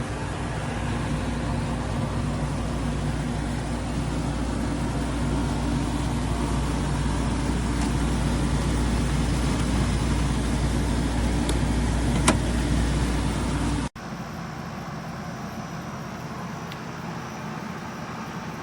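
Coolblus 8500 BTU portable air conditioner running: a steady fan rush over a low compressor hum, with one short click about 12 seconds in. Near the end the sound cuts off abruptly and gives way to a quieter steady hum.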